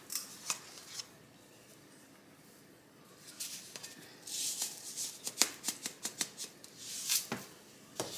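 A few light clicks, then from about three seconds in a run of dry rustling and crisp ticks: a container of breadcrumbs being handled and the crumbs measured out.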